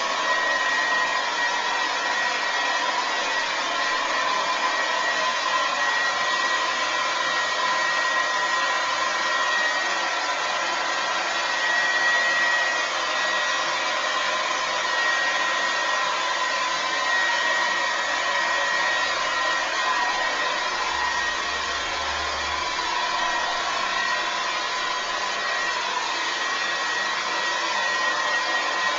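Remington Shine hair dryer running steadily at one setting: an even rush of blown air with a faint steady whine from the motor.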